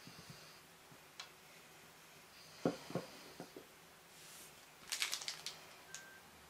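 Faint handling noises from gloved hands moving the wires of a small plastic CDI ignition unit: a few small clicks about midway and a quick cluster of clicks and rustles about five seconds in.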